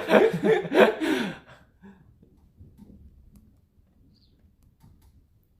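A voice speaking Korean for about the first second and a half, then a quiet room with only faint, scattered low sounds.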